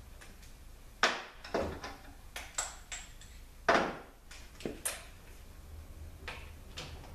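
Metal hand tools and parts clanking and clinking against an Aisin AW450-43LE transmission case as work begins on its valve body: about half a dozen separate sharp knocks, the loudest about a second in and just before four seconds.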